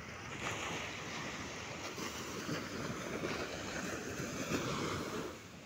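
Small waves breaking and washing up a sandy beach: a hiss of surf that swells about half a second in and dies away near the end.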